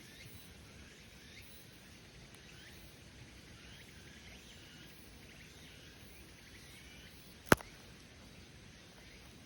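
Faint chirping calls of small birds over a low outdoor background. One sharp snap about seven and a half seconds in is the loudest sound.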